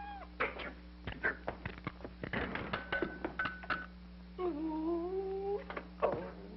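Scuffling knocks and clatters around a car wheel, then a man's drawn-out moan, rising slightly in pitch, and one more knock near the end, over a steady low soundtrack hum.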